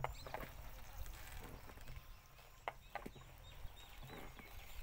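Faint outdoor ambience: birds chirping faintly, with a few scattered light knocks.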